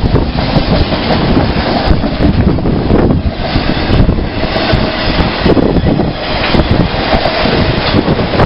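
A train passing close by: a steady, loud rumble of wheels on rail with scattered clicks, and wind buffeting the microphone.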